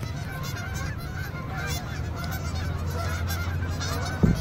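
A large flock of geese honking, many overlapping calls at once, with a steady low rumble underneath and a brief thump near the end.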